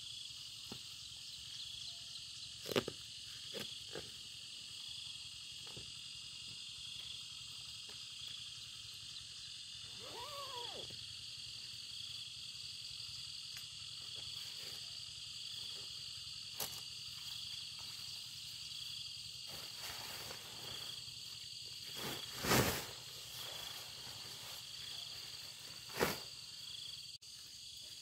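Steady chorus of insects, with a pulse repeating about once a second, over scattered knocks and rustles of camping gear being handled; the loudest knock comes about three-quarters through. A short rising-and-falling call sounds once near the middle.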